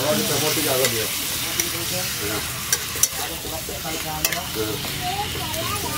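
Chicken pieces sizzling in a metal kadai over a wood fire while a spatula stirs them, with a steady frying hiss and scattered sharp clinks and scrapes of the spatula against the pan.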